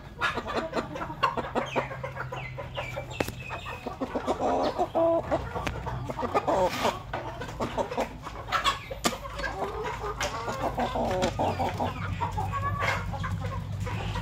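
Chickens clucking in short, repeated calls, with scattered sharp taps and scuffs among them.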